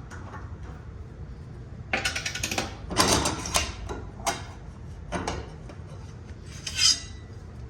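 Steel circular saw blades clinking and scraping against one another as they are handled: a run of metallic clatter, then a few separate clinks.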